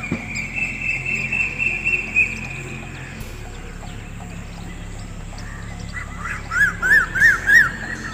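Birds calling outdoors. A high, raspy chatter runs through the first two seconds or so, and near the end comes a quick run of about five rising-and-falling chirps.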